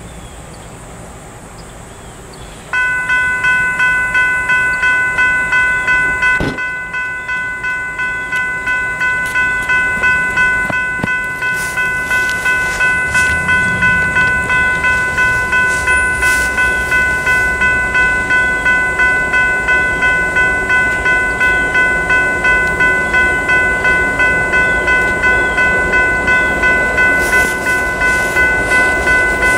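Railroad crossing's General Signals Type 3 electronic bell switching on abruptly about three seconds in and ringing on, a fast steady ding about three times a second: the crossing warning has activated for an approaching train.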